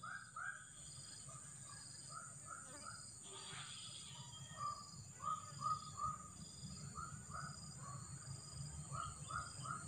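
A bird calling in runs of short repeated notes, about four a second, over a steady high-pitched insect buzz and a low rumble of outdoor ambience.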